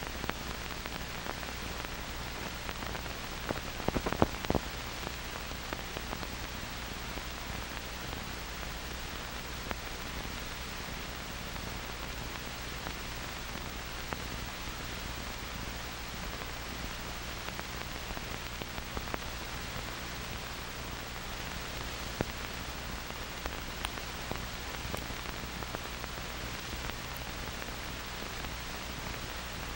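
Steady hiss and crackle of an old film soundtrack, with a short cluster of louder pops about four seconds in.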